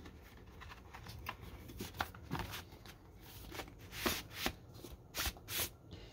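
Paper inner sleeve of a vinyl record sliding out of a cardboard album jacket, with rustling, scraping and light handling taps. It is busiest in the second half.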